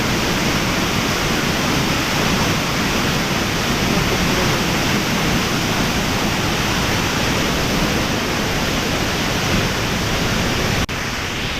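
Waterfall, a very loud steady rush of falling water. Near the end it suddenly drops a little in level and carries on.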